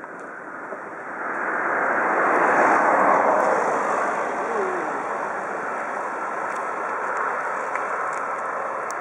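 Steady rushing noise of a vehicle on the move, swelling about a second in and then holding steady.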